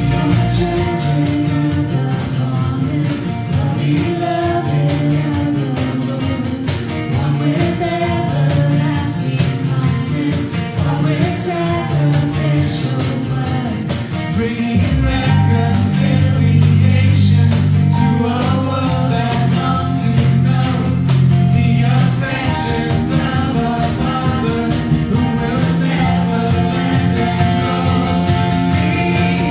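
Live worship band playing a song: strummed acoustic guitars accompanying singers. The low end fills out about halfway through.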